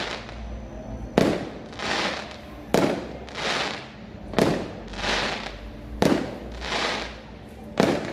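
Fireworks display: a regular series of sharp bangs from bursting shells, five of them about every second and a half, with a rushing hiss that swells and fades between each bang.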